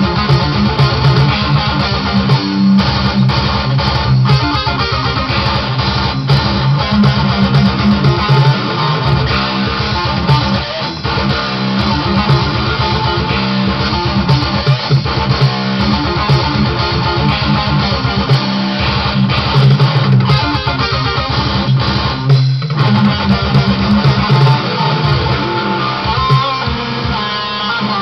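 Electric guitar playing a fast picked metal riff, heavy on low notes, in a rapid, even rhythm.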